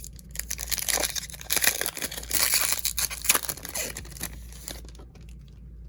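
A trading-card pack wrapper being torn open and crinkled by hand, a dense run of crackling and tearing for about four seconds.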